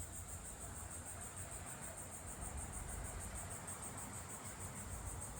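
Insect chorus, crickets trilling in a steady, fast-pulsing high-pitched drone, over a faint low rumble.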